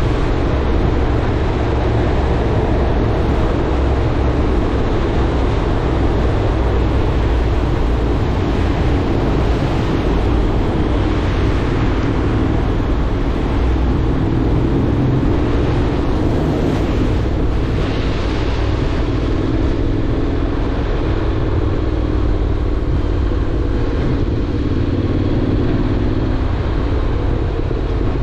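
Honda X-ADV motorcycle riding at a steady speed, its parallel-twin engine running under a steady rush of wind noise.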